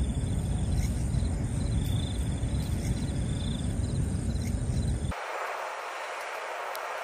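A loud, low rumble with insects trilling over it in short repeated bursts. About five seconds in, the rumble cuts off abruptly and leaves a steady hiss.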